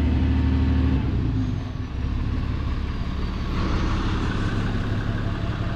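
Flatbed tow truck's engine running steadily with a low hum, its pitch and level shifting slightly about a second in.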